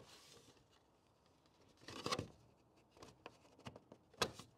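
Hard plastic Toyota Tacoma grille parts being handled and lined up by hand: light rubbing and scattered small clicks, with a sharp click about four seconds in.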